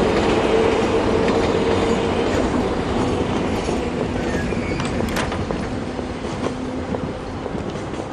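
Train running on the rails with a steady rumble, a few clacks and a faint squeal of wheels, slowly getting quieter.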